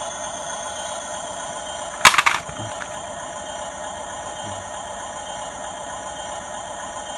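Small electric drive motors and gearing of a radio-controlled bulldozer whining steadily. A short, loud rattle comes about two seconds in.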